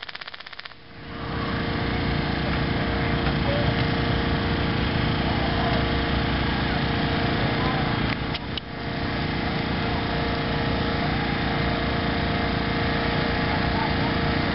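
An engine running steadily, with a constant hum under a broad, even noise.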